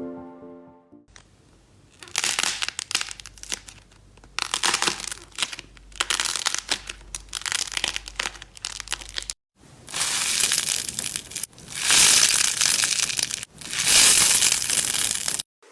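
Slime being pressed and squeezed by hand, making a dense crackling and crunching sound. It comes in bursts of a second or two, grows louder and more continuous in the second half, and stops abruptly at cuts between clips.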